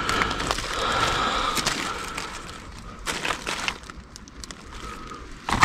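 Plastic bags and produce packaging rustling and crinkling as food is moved around in a dumpster, with scattered crackles. It fades through the middle and comes back with a sharp rustle near the end.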